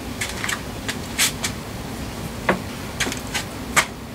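Fiberglass-skinned honeycomb panel door being swung and handled in its frame on its new hinge: a scattering of light, irregular clicks and taps as the panel touches the frame, where it still makes contact at the top of the door.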